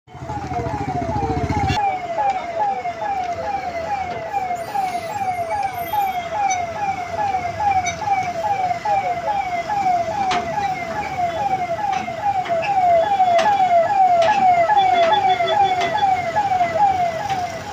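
Emergency siren wailing in quick falling sweeps, about three a second, without a break. A low rumble sits under it for the first two seconds.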